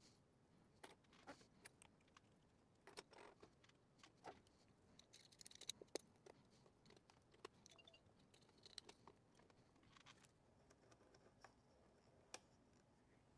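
Faint, scattered clicks and taps of a stereo microscope's small plastic and metal parts being handled and adjusted, with a couple of brief rustles.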